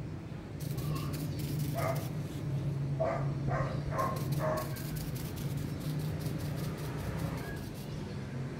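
An animal's short calls: one about two seconds in, then four in quick succession, over a steady low hum.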